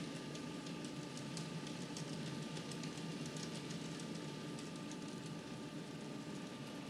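N scale model freight cars rolling along the track: rapid, irregular light clicking of small wheels over rail joints over a steady low hum.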